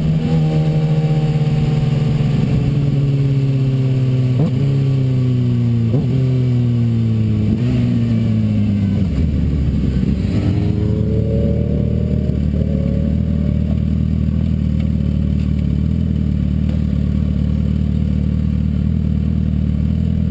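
Sport motorcycle engine heard from on board, its pitch falling steadily as the bike slows, with three brief revs about a second and a half apart. About nine seconds in it settles into a steady, lower engine note.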